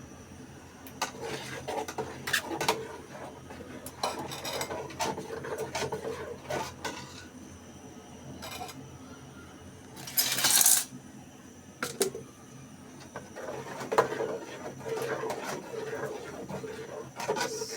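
Cooking utensils clinking and scraping against pots and dishes in irregular strokes, with one louder rush of noise about ten seconds in.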